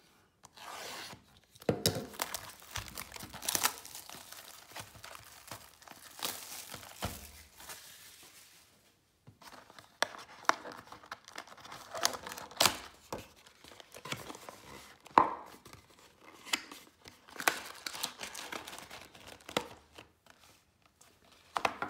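Panini Prizm basketball retail box being cut and torn open by hand. Irregular scratchy tearing and crinkling of cardboard and wrapping, with a few sharp snaps and a short pause about nine seconds in.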